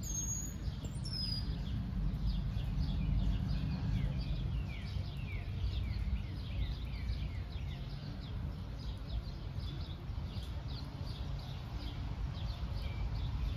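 Songbirds chirping, many short falling chirps in quick succession, over a steady low rumble.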